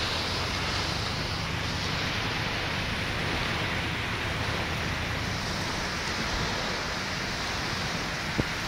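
Heavy rain hissing steadily on a vehicle, heard from inside, with a low engine hum underneath and a single click near the end.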